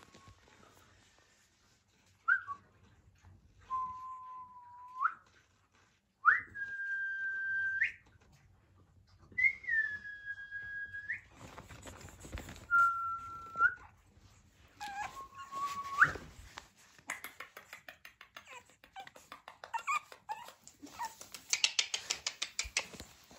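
Pug puppy whining: about seven thin, high whines, each held on one pitch for up to a second and a half, several ending in an upward flick. Near the end comes a quick run of light clicks.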